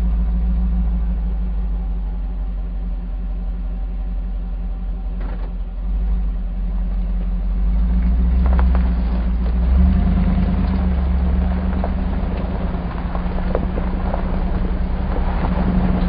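Hummer H2's V8 engine idling steadily, heard from inside the cabin. About halfway through the truck begins rolling slowly over a bumpy dirt and gravel road, bringing in tyre noise and scattered clicks and knocks over the engine.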